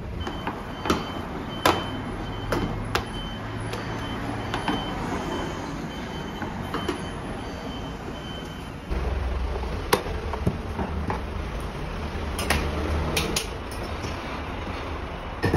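Sharp, scattered taps and knocks of dough being pressed and worked by hand and with a rolling pin on a stainless steel bench, over a steady low background rumble. The rumble gets louder about nine seconds in.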